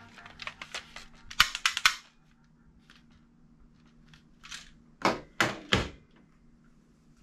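Hard plastic clicks and clacks from a gold toy submachine gun being handled: a quick run of clicks in the first two seconds, then three sharp clacks about five seconds in as it is set down among other toy guns on a wooden table.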